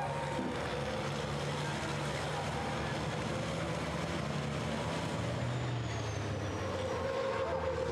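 Several racing trucks' diesel engines running hard as they pass close together, a steady drone whose engine note drops and rises again about two-thirds of the way in.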